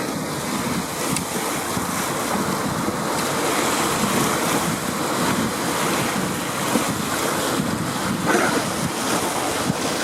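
Ocean surf washing steadily against the shore, with wind blowing on the microphone.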